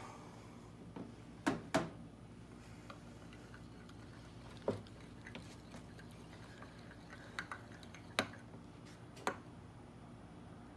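Scattered light clicks and taps of a metal knife and spoon against a glass measuring cup while melted soft-plastic bait is stirred, about seven sharp ticks at uneven intervals.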